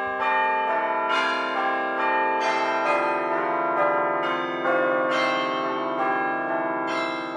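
Closing music: a tune of ringing, bell-like notes sounding together in chords that change every second or so, starting to fade near the end.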